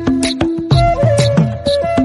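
Instrumental background music: a steady drumbeat under a held melody line.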